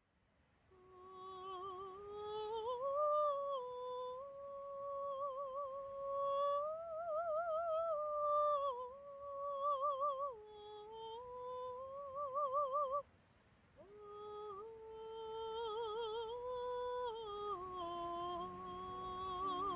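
A woman singing a slow wordless melody, holding long notes with a wide vibrato and moving up and down in steps. There is a short pause for breath about thirteen seconds in.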